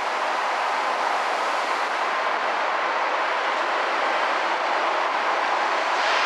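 A train running through the station: a steady rumbling rush of wheels on rails that grows slightly louder.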